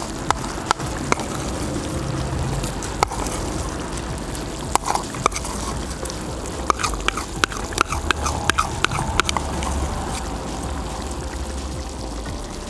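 Chicken and tomato stew simmering in a cast-iron kazan: a steady bubbling with scattered pops, and a quick run of sharp clicks about seven to nine seconds in.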